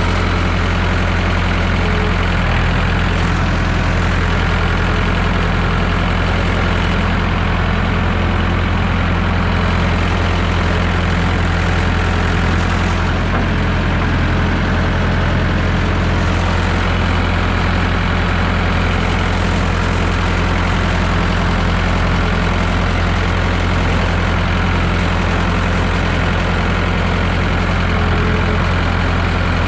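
1969 Massey Ferguson 3165 backhoe tractor's engine idling steadily.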